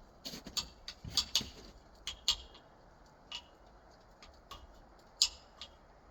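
Irregular light metallic clicks and clinks, about a dozen, from hand tools and small metal parts being handled; the loudest comes about five seconds in.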